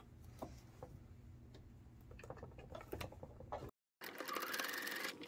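A few faint clicks, then after a brief dropout a Singer Quantum sewing machine starts running at a fast, steady stitch about four seconds in.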